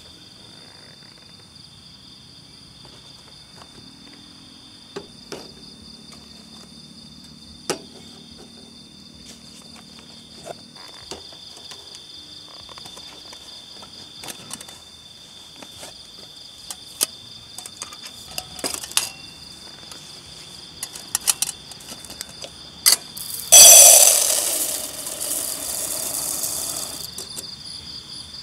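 Night insects chirring steadily on high tones, with scattered clicks and knocks of metal camp cookware being handled. About 24 seconds in, a loud hissing rush starts suddenly and fades over about three seconds.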